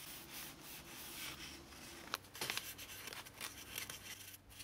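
Paper coffee filter, dampened with isopropyl alcohol, rubbing and scratching over a small chip heatsink and a graphics card's circuit board in short, irregular wiping strokes. The sound is faint.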